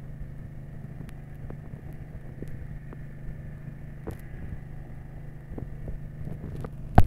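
A fishing boat's engine running steadily with a low hum, with light clicks and knocks from work on deck. There is one sharp, loud knock near the end.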